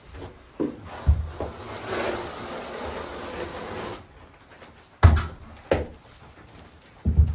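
A trowel scraping thinset mortar across cement backer board for about two seconds, with several dull knocks before and after it.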